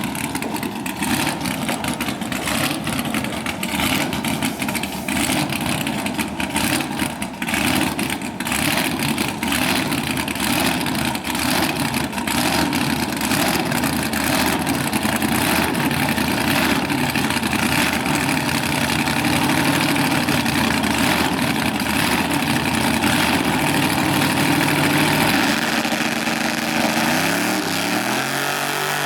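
Drag-racing car engine running with a rough, crackling exhaust. About 26 seconds in, an engine speeds up and its pitch rises.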